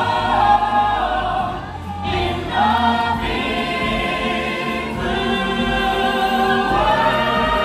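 Stage-musical cast singing together as a choir over backing music, with long held notes in the melody.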